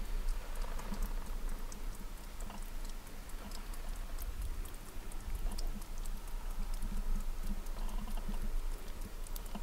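Meltwater dripping from snow and icicles on a canvas tent roof: many small, irregular ticks and patters of falling drops over a low steady rumble.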